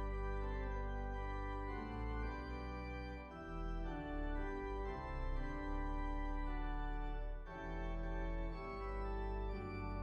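Organ music: full sustained chords held and changing every second or two at a slow, steady pace.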